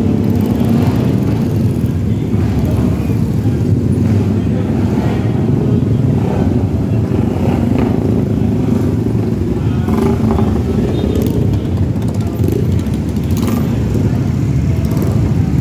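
Many classic and café-racer motorcycles running together in a tightly packed crowd, a loud, steady rumble of engines.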